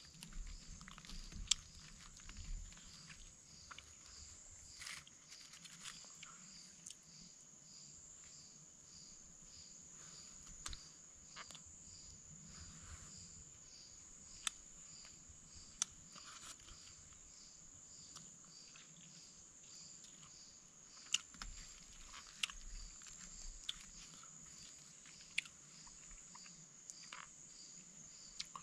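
Night insects calling steadily: a high continuous buzz with a pulsing chirp about twice a second. Scattered small clicks and crunches of food being handled and chewed close by.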